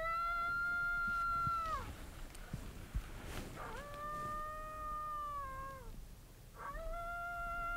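Coyote howl call sounding in long, drawn-out howls: each swoops up, holds one pitch for about two seconds, then drops off. One howl ends about two seconds in, a second follows, and a third begins near the end; this is the howl used to call in coyotes.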